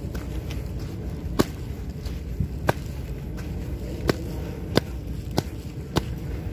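Footsteps of shoes on a muddy dirt path: six sharp steps about a second or less apart, over a steady low rumble.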